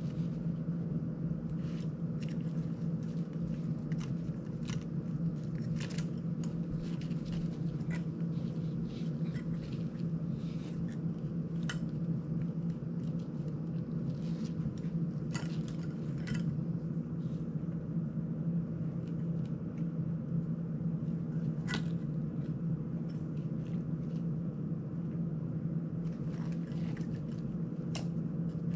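Scattered small clicks and taps of plastic drone parts being handled and fitted together by hand, over a steady low hum.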